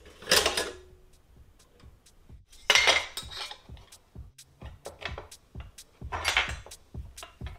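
Metal clattering and scraping as aluminium angle profile and a steel vernier caliper are handled on a wooden desk. It comes in three loud bursts a few seconds apart, with lighter clicks between them.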